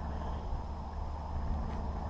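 Steady low rumble of wind buffeting the microphone, with a faint even hiss above it.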